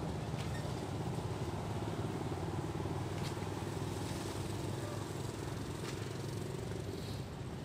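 A motor engine running steadily in the background, an even low hum, with a few faint clicks.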